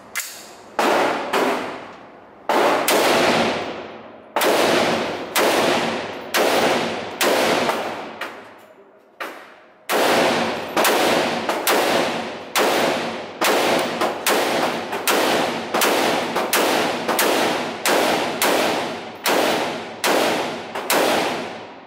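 AR-style rifle fired semi-automatically in a long string of shots at a steady pace of about two a second, each shot ringing on in the echo of an indoor range. There is one longer pause a little before the middle, after which the shots come slightly faster to the end.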